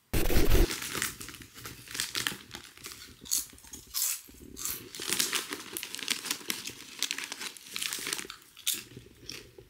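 Crisp packet crinkling and rustling as a hand goes in and out of the bag for crisps, with a low thump in the first half second.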